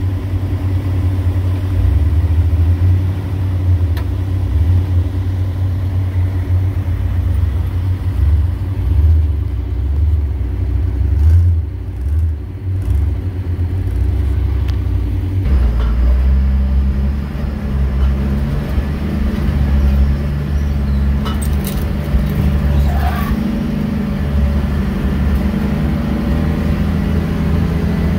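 Engine of a Dodge Ramcharger running at low revs as the truck crawls over rocks, a steady low rumble. About halfway through the sound switches abruptly to a different steady engine note heard from aboard a vehicle.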